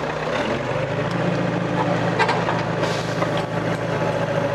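Komatsu PC50 mini excavator's diesel engine running. Its note steps up about half a second in and then holds steady under hydraulic load as the boom is folded, with a few light knocks.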